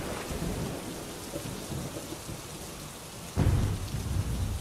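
Steady heavy rain with rolling thunder rumbling low underneath; a louder thunderclap breaks in about three and a half seconds in.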